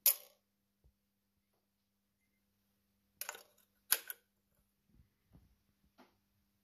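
Sharp metallic clicks and clinks of Ford Model T clutch parts being handled as the clutch spring and sleeve are fitted over the clutch drum shaft. There is one loud click at the start, two short clusters of clinks about three and four seconds in, then a few faint knocks.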